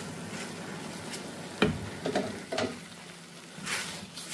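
Red silicone spatula stirring and scraping a thick, creamy chicken stuffing around a nonstick pan, with light sizzling. A few soft knocks of the spatula against the pan come in the middle, and a swishing scrape near the end.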